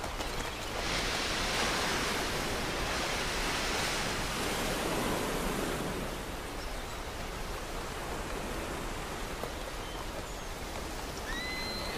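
Sea surf breaking and washing over a pebble shore, a steady hiss that swells for a few seconds and then eases. A short, thin whistle-like sound comes near the end.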